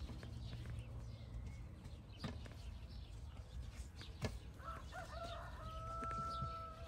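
A rooster crowing about four and a half seconds in, ending on one long held note. There are a couple of sharp knocks before it.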